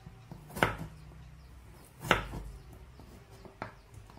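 Kitchen knife slicing through a peeled raw potato and striking a wooden cutting board: two sharp chops about half a second and two seconds in, and a lighter one near the end.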